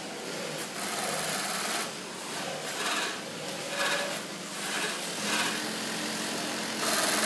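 Keestar GC3 762 cylinder-bed, double-needle, triple-feed heavy-duty sewing machine stitching in several short starts and stops, then running more steadily near the end.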